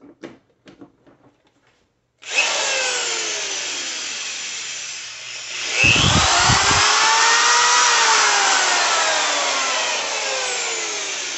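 Corded electric drill run free on power from a portable battery inverter. It starts about two seconds in and its whine sags in pitch, then surges up to full speed near six seconds in as the inverter wakes up and delivers more watts, then slowly falls in pitch.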